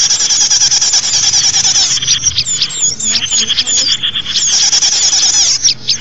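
Small songbirds giving dense, high-pitched, rapid twittering. About two seconds in it thins into separate quick sweeping chirps, and the fast twitter returns a couple of seconds later.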